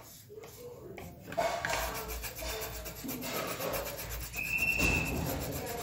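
Graphite pencil shading on paper on a clipboard: repeated rubbing strokes of the lead across the sheet. A short, steady high tone sounds about three-quarters of the way through.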